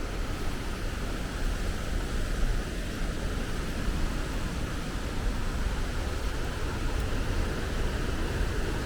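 Rushing river water: a steady, even wash of noise with a strong low rumble.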